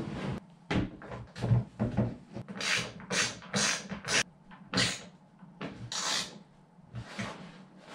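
Short, irregular puffs of hard breathing and effort from a man straining to hold a plastic runner strip against a plastic ice sled, with a few knocks and rubs of the plastic being handled.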